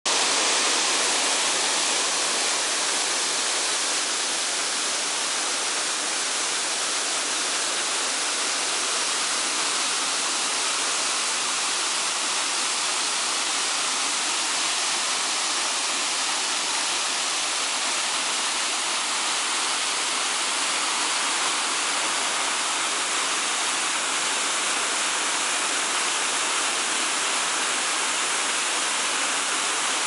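Waterfall cascading down a cliff face and splashing into the water at its foot: a steady, even rush of falling water.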